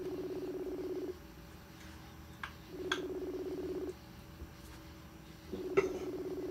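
Outgoing phone call ringback tone: three short, low, pulsing rings about 2.7 seconds apart while the call goes unanswered. A few faint clicks fall between the rings.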